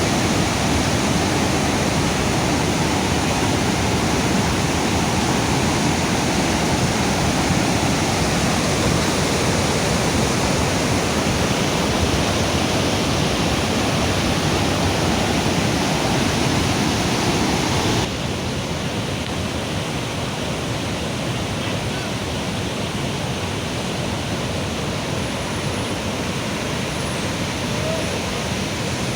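Floodwater rushing in a steady, dense hiss. About two-thirds of the way through it drops abruptly to a slightly quieter, duller level and carries on steadily.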